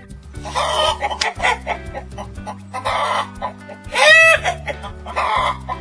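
Chicken clucking in a few short bursts, with one louder pitched squawk about four seconds in, over steady backing music.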